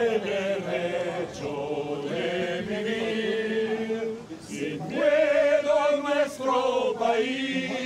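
A group of male voices singing a slow chant-like song in unison, holding long notes. There is a short break about four seconds in before the next phrase swells up.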